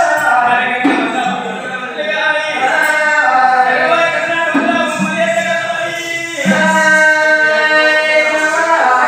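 Oggu Katha folk performers singing together, holding long notes, with a new phrase starting about a second in, another near the middle and a third past six seconds.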